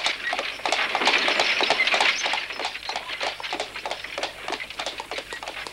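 Horse's hooves clopping and carriage wheels rattling as a horse-drawn carriage pulls away, a dense run of knocks that fades as it goes.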